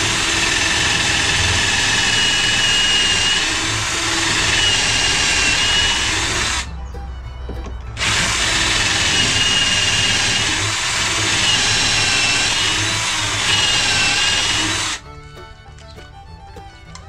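Cordless drill boring a pocket hole with a stepped bit through a pocket-hole jig's metal guide collar, the bit oiled with WD-40 against binding. It runs in two long pushes with a short let-up about 7 s in, carrying a thin wavering whine, and stops about 15 s in.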